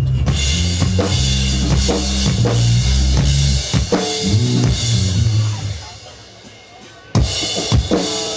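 Live rock band playing loud over a PA system, with drum kit and bass guitar prominent. The music drops away about six seconds in, and two loud hits ring out near the end.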